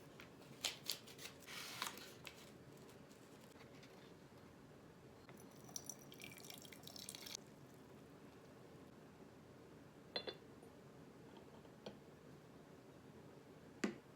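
Faint water drips and a brief trickle of water, with a few sharp little clicks, over quiet room tone.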